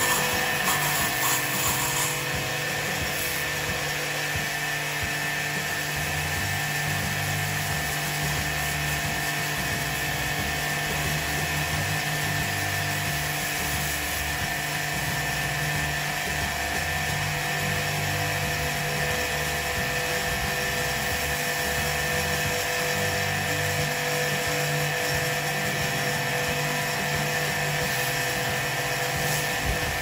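High-pressure washer pump running steadily with a whine, its water jet spraying onto an air conditioner's outdoor condenser unit.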